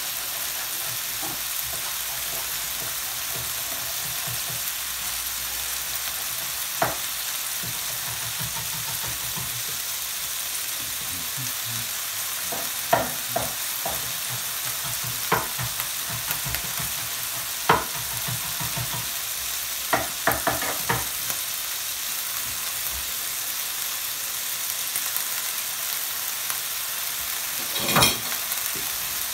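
Cod fillets, cherry tomatoes and olives sizzling steadily in olive oil in a frying pan. Scattered sharp knocks of a kitchen knife chopping parsley on a wooden cutting board cut through the sizzle, the loudest near the end.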